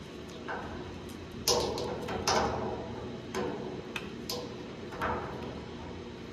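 Steel pliers clicking and scraping against the metal filter head of a heating-oil filter: about five sharp clicks, irregularly spaced, the loudest in the first half.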